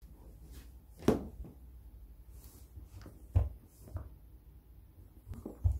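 Handling noise: a few dull thumps and knocks, the loudest about a second in and another about three and a half seconds in, then a pair near the end as a hand takes hold of the cardboard phone box.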